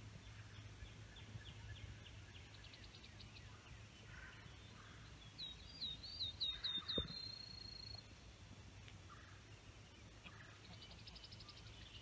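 Wild songbirds singing, faint: short trills of quick high repeated notes, and a little past halfway one louder phrase of about six quick notes ending in a held high whistle.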